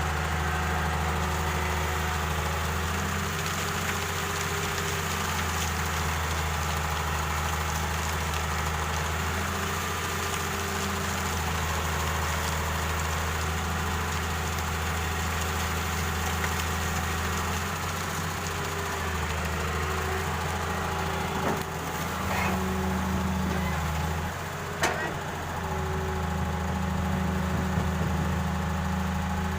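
Diesel excavator engine running steadily while it digs and loads sand, its low note stepping up and down every few seconds as the load on it changes. There are two sharp knocks in the last third.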